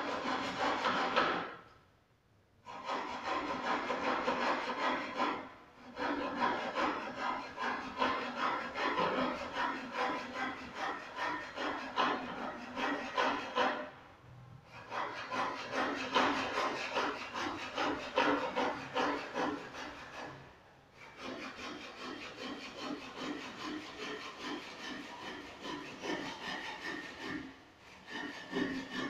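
Hand saw cutting through wood in runs of quick back-and-forth strokes, with short pauses every few seconds.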